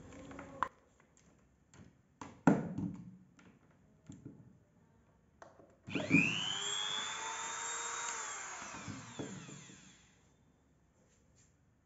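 Several clicks and knocks of a plug and cable being handled, then a handheld rotary tool switches on about six seconds in: its motor spins up with a rising whine, runs steadily for about three seconds, then winds down and stops.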